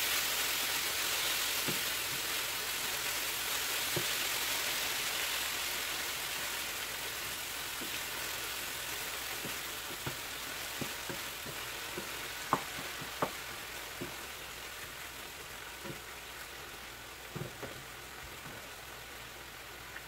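Diced chicken sizzling in a frying pan while it is stirred with a wooden spatula, with scattered light taps of the spatula on the pan. The sizzle slowly dies down.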